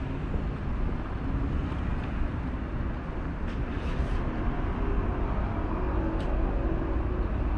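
City street ambience heard while walking: a steady low rumble of traffic with faint, indistinct voices and a few light clicks mixed in.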